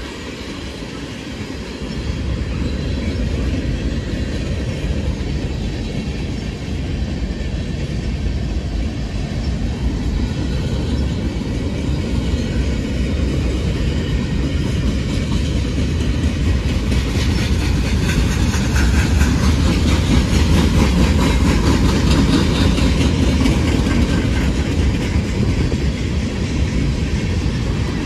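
CSX M363 freight train rolling past on the rails: a steady rumble of wheels and cars that grows louder over the second half. From about halfway through it carries rapid clicking.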